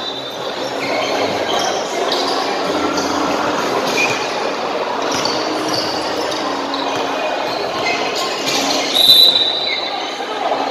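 Crowd noise from spectators around a 3x3 basketball court in a large hall, with basketballs bouncing and short squeaks of sneakers on the court. A louder, shrill high squeak sounds briefly about nine seconds in.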